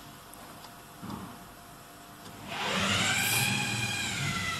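A motor whine swells about two and a half seconds in. Its pitch rises slightly and then falls away, with a low rumble under it. A soft knock comes about a second in.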